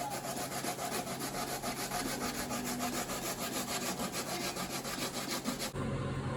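Raw root vegetables being grated by hand on a metal grater: rapid, even scraping strokes that stop shortly before the end.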